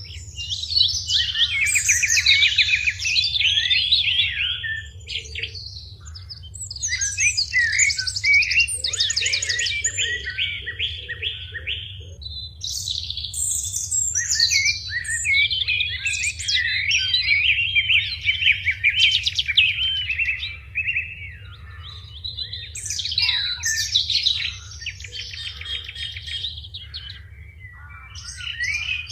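Songbirds chirping and singing in quick, busy phrases, in several bouts with short lulls between them, over a faint steady low hum.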